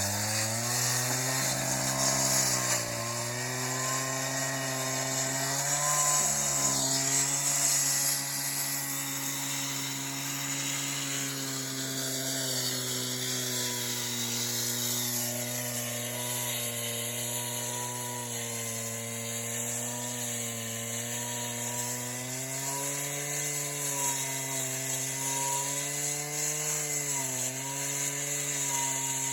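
Water-fed concrete saw running steadily while cutting into an asphalt road, its motor pitch dipping and recovering as the blade bites and eases off.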